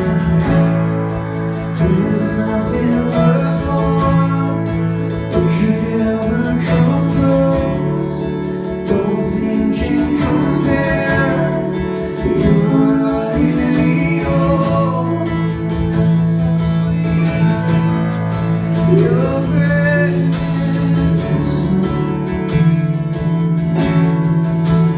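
Acoustic guitar strummed steadily, with a man's voice singing over it.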